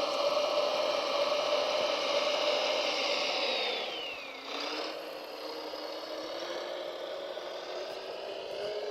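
Electric motor of a radio-controlled construction model whining steadily, then dropping in pitch about four seconds in as it slows under load and slowly rising again.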